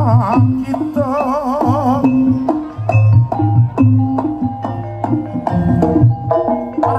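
Jaranan (kuda lumping) music from a live gamelan-style ensemble: hand drums beating with struck metal tones and a wavering melody line over them for the first couple of seconds.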